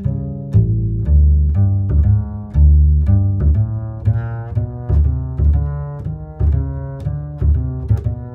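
Loud music with a deep, heavy bass line and a steady beat of about two strokes a second.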